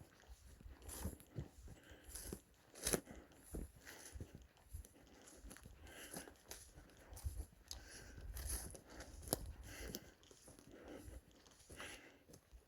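Footsteps crunching and snapping through dry twigs, brush and forest litter on a hiking trail, in an irregular run of crunches with a few sharper snaps.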